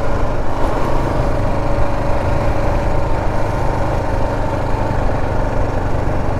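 Kawasaki KLR 650's single-cylinder four-stroke engine running steadily at a low, even pace while the bike is ridden.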